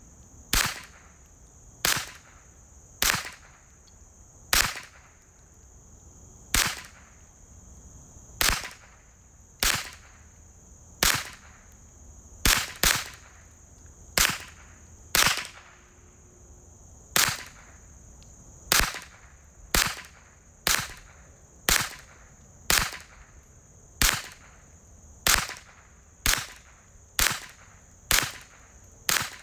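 Ruger 10/22 semi-automatic rifle firing .22 LR, about two dozen single shots at an uneven pace of roughly one a second, two of them in quick succession about halfway through.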